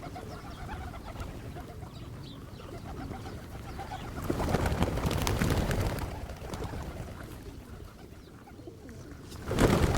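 Pigeons cooing, with a flurry of wing flaps about four to six seconds in as they take off. A louder flutter comes near the end.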